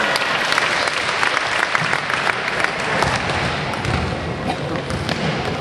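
Crowd applauding at a basketball game, the clapping starting suddenly, densest for the first three seconds and then thinning out.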